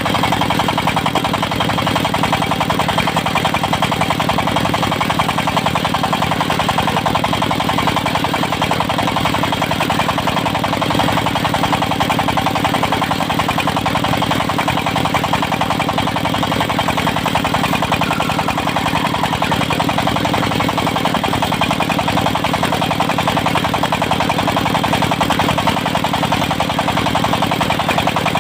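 Engine of a portable circular sawmill running at a steady speed with no change in pitch.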